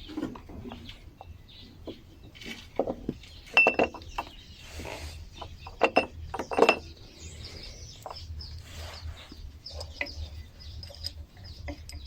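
Metal clinking and knocking, irregular sharp strikes with a brief ring, the loudest a few around four and seven seconds in, over a steady low hum.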